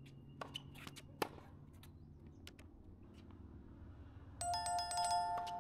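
A bell rings in a rapid trill for about a second and a half, starting near the end, after a few faint knocks.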